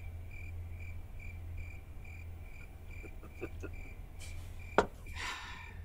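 Crickets chirping steadily at night, an even pulse of about two or three chirps a second. A single sharp click sounds about five seconds in, followed by a brief hiss.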